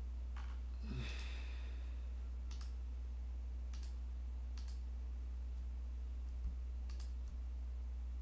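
About six single, sharp computer mouse clicks, spaced irregularly, over a steady low electrical hum.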